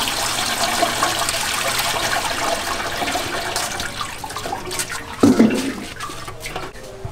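Water poured from a metal pitcher into a steamer pot, a steady splashing gush that fades after about four seconds, then a single loud knock about five seconds in.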